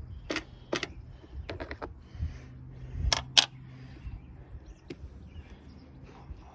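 Scattered sharp clicks and small metallic knocks from hands working on a dead walk-behind lawn mower while it is opened up and checked. The loudest is a quick pair of knocks about three seconds in.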